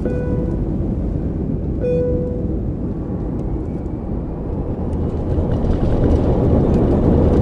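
Loud steady low rumble with two short clear beeping tones, one at the start and one about two seconds in. The rumble swells over the last few seconds.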